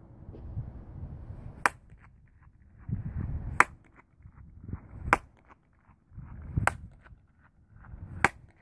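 Five single hand claps about a second and a half apart, each followed by a quick train of fainter repeating echoes off a curved concrete wall: a flutter echo, the sound bouncing back many times. A low rumble runs underneath.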